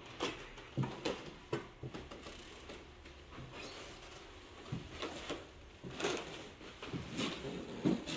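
Scattered soft footsteps and knocks on a wooden floor in a small room, coming irregularly a few times a second at most.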